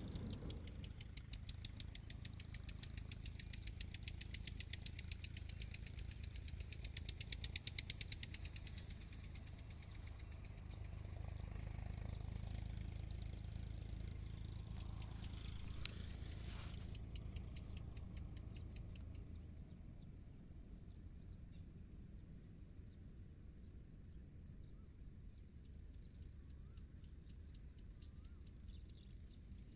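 A low, steady rumble like a distant engine, with fast high ticking over roughly the first eight seconds. Faint bird chirps come in over the last third.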